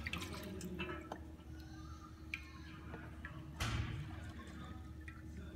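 Jet fuel being poured from a glass measuring cup into a hydrometer cylinder, trickling and dripping, with a few light clicks and a knock past the middle, over a steady low hum.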